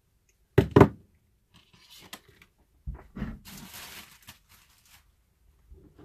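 Wire cutters snipping through power-cord wire, two sharp snaps in quick succession about half a second in, followed by softer scraping and rustling as the wires and tool are handled.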